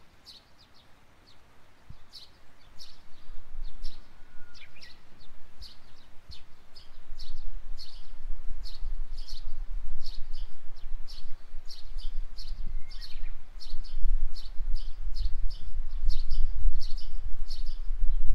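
Small songbirds chirping over and over in short, high notes. A deep rumble underneath grows from about two seconds in and becomes the loudest sound.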